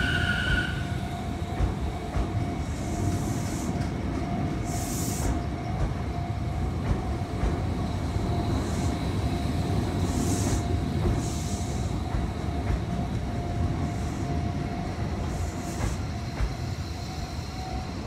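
Sotetsu 11000 series electric train rolling past at close range: a steady rumble of wheels on rail with a constant hum and several brief high hisses. A high ringing tone stops about a second in.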